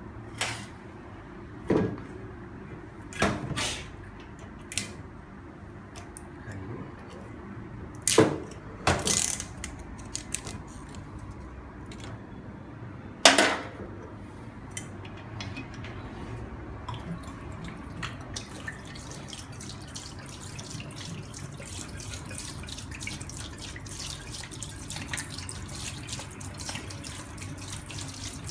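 Several sharp knocks and clinks as glass whisky bottles are handled and opened over a stainless steel sink, the loudest about halfway through. From about two-thirds of the way in, whisky pours out of a bottle and splashes steadily into the sink.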